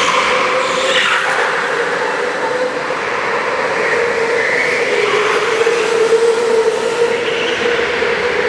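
Several go-karts lapping a track, their motors making a steady drone that dips slightly in pitch about five seconds in.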